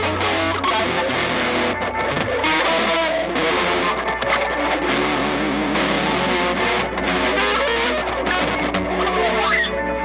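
Music: electric guitar played through effects with distortion, over a steady low bass. Near the end the bright, noisy upper layer drops away suddenly, leaving sustained held notes.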